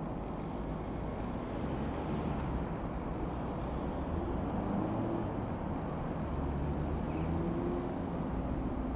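An Ikarus C-42 microlight's Rotax 912 four-cylinder engine and propeller droning steadily as it flies overhead, under a steady outdoor rumble.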